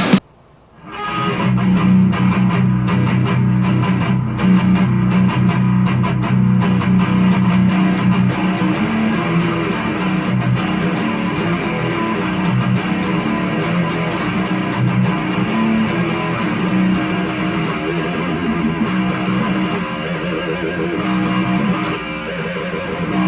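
Seven-string electric guitar (Ibanez RG7421 fitted with DiMarzio Dreamcatcher 7 and Rainmaker 7 pickups) playing prog-metal riffs through a Mesa Boogie Subway Rocket amp with no pedals. The playing breaks off briefly at the start and comes back in about a second in.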